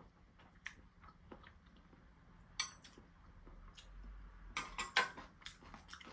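Cutlery clinking against dishes: scattered light clicks, with a sharp clack about two and a half seconds in and a quick run of clatter about four and a half to five seconds in.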